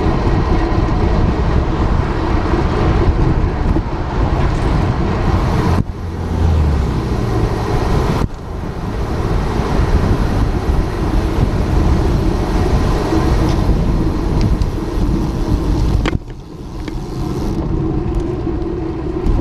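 Strong wind buffeting the microphone while cycling, a loud low rumble that drops off suddenly three times, with road traffic going by.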